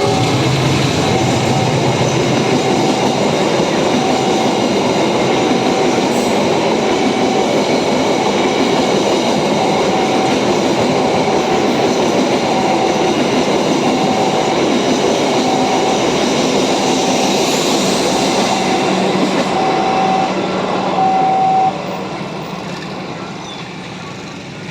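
Argo Sindoro passenger train running past close by: a loud, steady rush of wheels on rails, with a short tone repeating about every second and a half. The noise drops off sharply about 22 seconds in as the train goes by.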